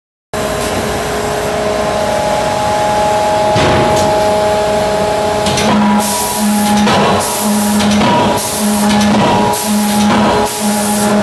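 Anyang CNC hydraulic die-forging hammer working a hot workpiece: a steady machine hum, then from about halfway a repeating cycle roughly once a second of short hissing bursts alternating with a low hum.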